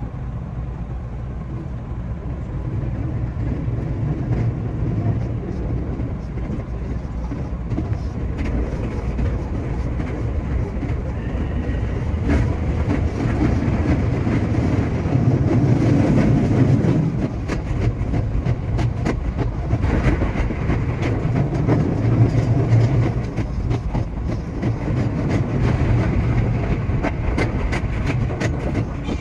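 A JR West 227 series electric train running on track, heard from the driver's cab: a steady low rumble with many sharp clicks from the rails. It grows louder around the middle and again a little later.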